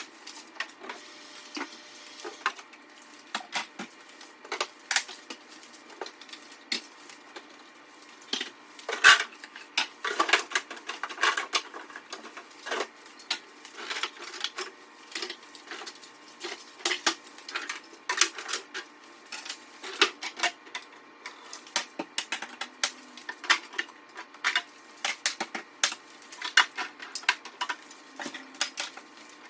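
Jars, bottles and food containers being taken out of a fridge and set down on a counter: an irregular run of clinks and knocks, several a second, busiest from about eight seconds in.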